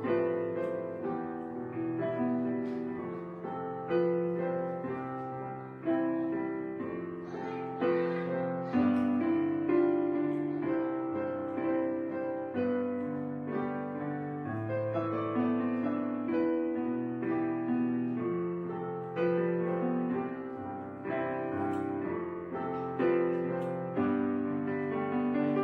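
Gentle piano background music: a steady run of soft notes and chords, each one struck and fading, with no speech over it.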